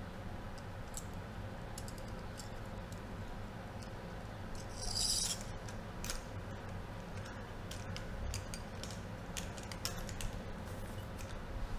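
Small metal clicks and ticks of hand pliers and tools working on a steel motorcycle fork damper rod and its ring, with a brief louder hiss about five seconds in.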